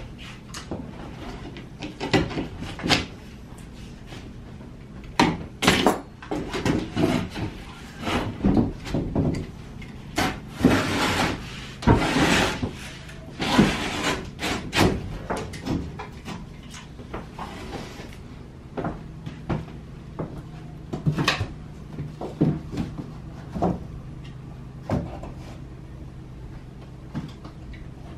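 Drywall being cut and handled on a work surface: a string of irregular knocks and taps, with a longer scraping stretch around the middle, then quieter knocks as a panel is set against the wall framing.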